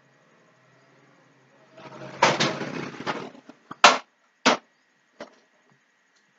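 Computer mouse sliding over the desk for a second or two, then three sharp clicks, the loudest about four seconds in, as a link is clicked.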